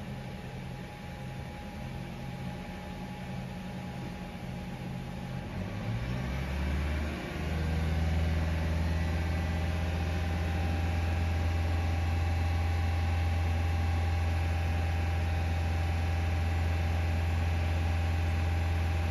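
Toyota Sienna hybrid's 2.5-litre four-cylinder engine, heard from inside the cabin, idling for about six seconds, then revving up and holding steady at a limited RPM under full throttle. It is being run in maintenance mode to circulate the coolant and bleed air from the system after a coolant refill.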